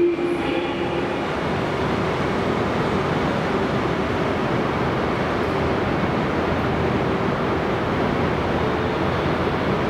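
Steady noise of the E926 East-i Shinkansen inspection train at the station platform, with a faint wavering hum.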